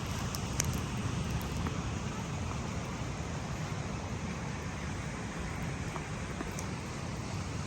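Steady low wind rumble on the microphone, with a few faint sharp crackles in the first second and once near the end.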